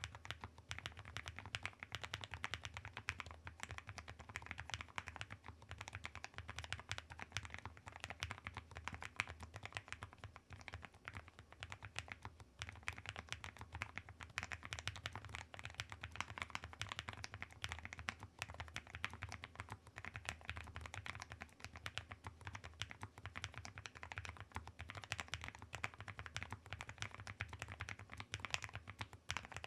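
Continuous fast typing on a Chosfox Vero75 low-profile mechanical keyboard with an aluminium case: a steady run of fairly quiet keystroke clacks with a thick, short ring from the aluminium body.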